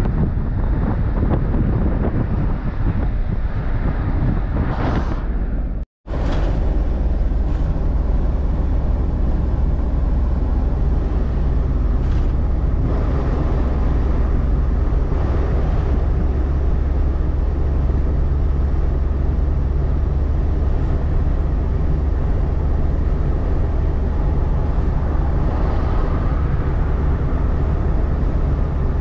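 Wind buffeting the microphone of a moving vehicle. About six seconds in it cuts off briefly, then gives way to the steady low drone of an Iveco diesel truck's engine and road noise heard inside the cab at highway speed.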